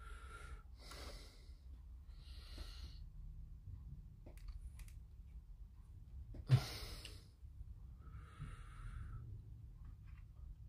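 A person breathing audibly through the nose close to the microphone: about five short breaths or sighs, the sharpest and loudest about six and a half seconds in, with a few faint clicks of plastic model parts being handled.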